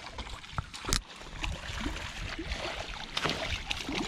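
Wind rumbling on the microphone over splashing, trickling water, with a few short knocks, the sharpest about a second in.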